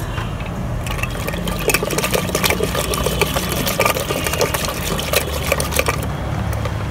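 Wooden hand churner spun in a steel pot of a milk mixture, the liquid sloshing and the stick clacking against the metal in quick irregular clicks from about a second in.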